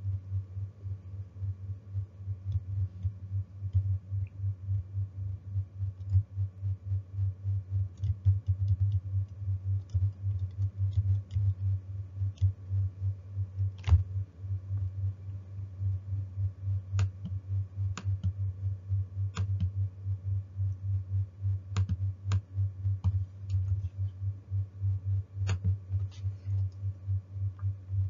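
Scattered clicks of someone typing on a computer keyboard, a few irregular keystrokes at a time, over a low hum that pulses several times a second.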